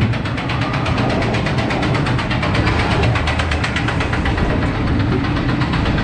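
Reverchon spinning wild-mouse coaster car rolling along its steel track, making a fast, even rattle over a steady low rumble.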